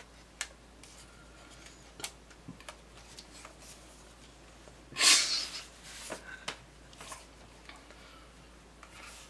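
Handling noise from a DSLR camera with a mounted shotgun mic being turned over in the hands: scattered light clicks and taps, with one short, louder rustling scrape about five seconds in.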